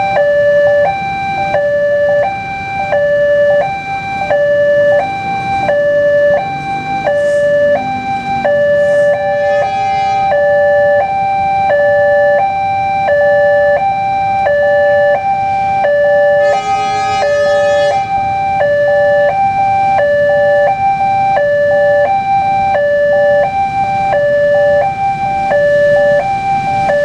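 Indonesian railway level-crossing warning alarm sounding from the horn loudspeaker on the crossing signal pole: an electronic two-tone signal alternating high and low about once a second. It warns that a train is approaching and the barriers are down.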